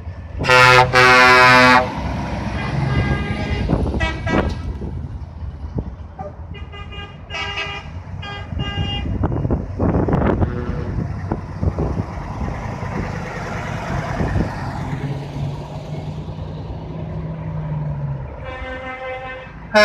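Trucks' air horns sounding as heavy lorries drive past: one long, loud blast about half a second in, then several shorter toots between about 3 and 9 seconds. Underneath is the rumble of diesel truck engines pulling away.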